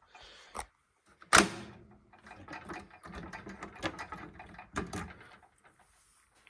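Metal keys clicking and rattling as a key is tried in a lock. There is one sharp knock about a second and a half in, then a string of lighter clicks that fade out near the end.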